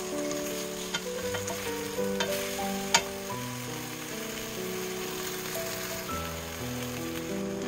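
Soy-sauce and sugar glaze sizzling around lotus root slices in a wok, reducing over medium-low heat. Wooden spoons knock against the pan a few times in the first three seconds, then the pan is left to sizzle.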